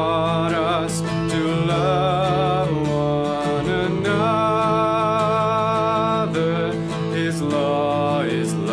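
Music: a voice singing long held notes, wavering slightly, over acoustic guitar.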